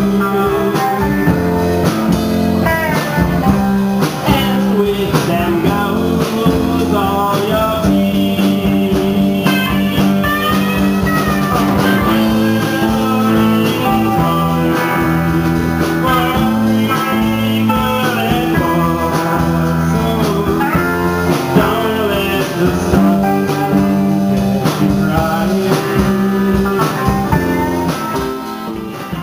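Live band playing amplified: electric guitars, bass guitar and drums, with bending lead guitar lines over a steady beat.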